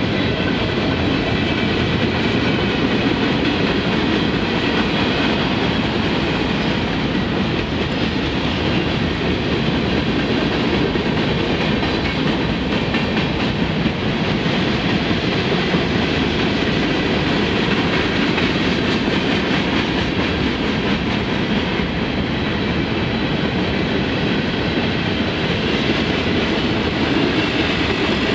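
Freight cars of a Union Pacific freight train rolling past, their steel wheels running on the rails in a steady, loud wash of noise.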